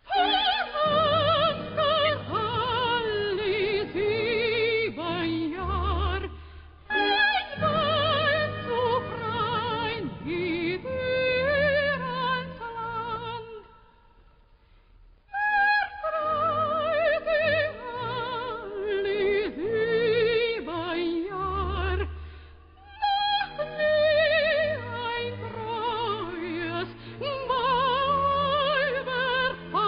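Soprano singing opera with wide vibrato over an orchestra. About 13 seconds in, the music drops to a brief near-silent pause, then the voice comes back strongly about two seconds later.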